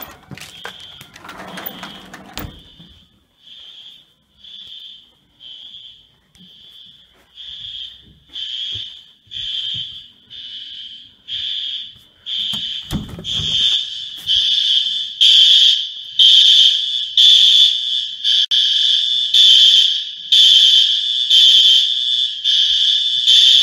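Building fire alarm sounding: a repeating high-pitched beep, about one and a half pulses a second, that grows much louder about halfway through.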